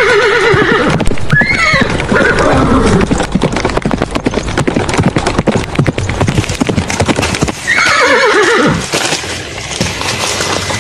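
Horse sound effect: hooves clip-clopping steadily throughout, with a horse whinnying three times, near the start, about two seconds in and about eight seconds in.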